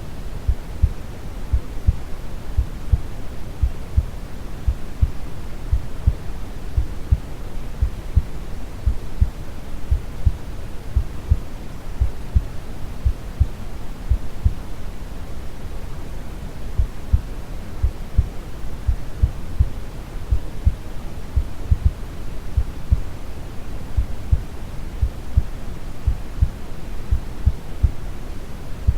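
Steady brown noise, a deep even hiss, with a calm heartbeat thumping regularly over it.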